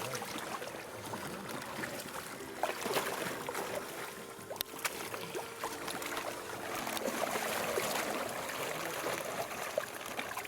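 Pond water splashing and sloshing, with scattered small knocks, as koi are caught and handled in the water during a mud-pond harvest.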